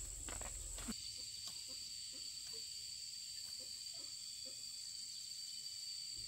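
Insects droning steadily in thin high tones, with faint short chirps below them. A few light knocks fall in the first second, and the drone's pitch changes there.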